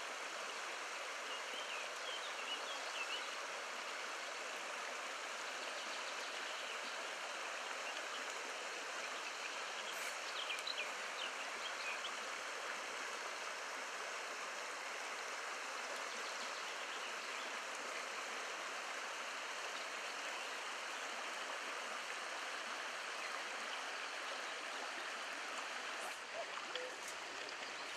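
Small shallow river running over riffles: a steady rush of flowing water.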